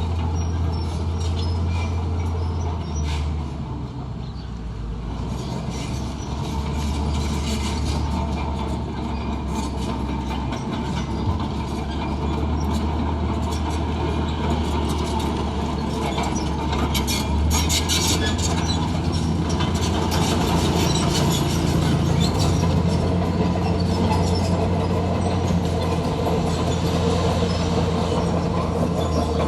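Komatsu D41P crawler bulldozer working: its diesel engine runs steadily, shifting pitch a few times, over clanking and squealing steel tracks.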